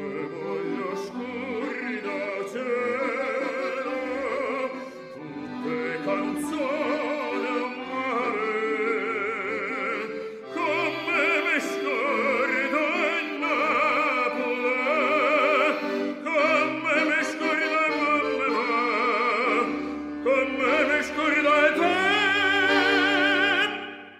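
Baritone singing a Neapolitan song in operatic style with vibrato, accompanied by an accordion with its bass notes underneath. The song closes with a long held note, and the music stops right at the end.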